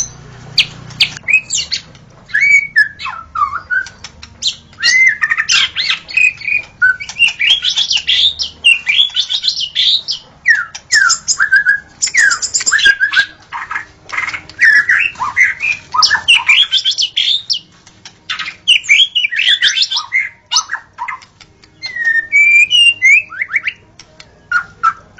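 White-rumped shama singing: a long run of varied whistled phrases with quick rising and falling notes, broken by short pauses.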